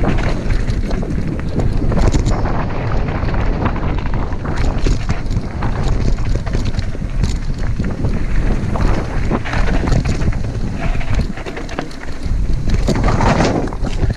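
Heavy wind buffeting on the camera microphone while a mountain bike descends a rough dirt trail, with constant clattering and knocking from the bike over the bumps.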